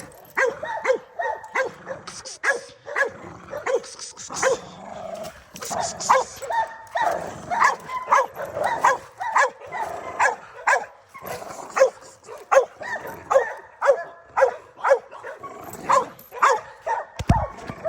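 Pit bull barking over and over, about two barks a second, with a brief low thump near the end.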